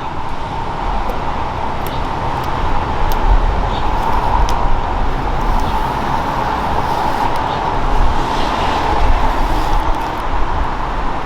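Heat gun blowing steadily with a constant whirr, warming tint film so it can be stretched over a tail light, with a few light clicks from handling the film.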